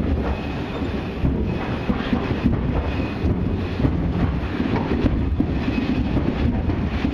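Railroad turntable bridge turning under load: a steady low rumble and rattle of its wheels rolling on the circular rail, with faint high squeals now and then.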